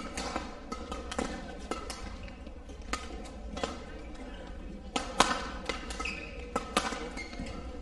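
Badminton rally: sharp cracks of rackets striking the shuttlecock, among quicker thuds of footfalls and brief shoe squeaks on the court mat. The loudest hits come about five and nearly seven seconds in.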